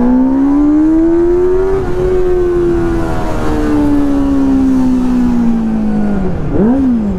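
Motorcycle engine under throttle: it revs up for about two seconds, then its pitch slowly sinks as the throttle eases, with a short, quick rev near the end.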